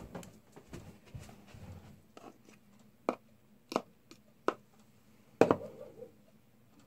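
A handful of short, sharp taps and clicks, spaced irregularly about a second apart, over faint rustling from things being handled.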